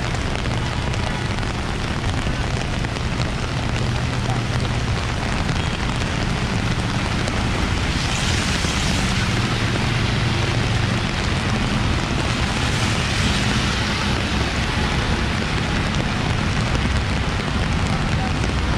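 Heavy rain falling on wet pavement alongside road traffic: a steady hiss of rain over a low rumble of car engines. The hiss swells twice, about eight and thirteen seconds in, as tyres run through the water on the road.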